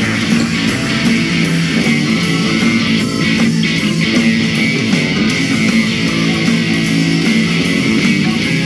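Rock band playing an instrumental, led by electric guitar.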